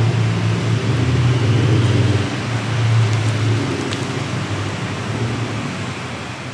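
A motor vehicle's engine running close by: a low, steady hum that is loudest in the first half and slowly fades.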